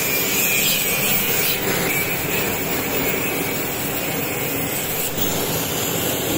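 Bamboo-splitting machine running steadily, a continuous mechanical din.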